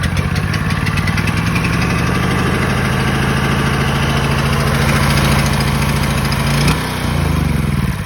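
Honda portable generator engine running steadily, then about seven seconds in its speed suddenly drops, its pitch falling.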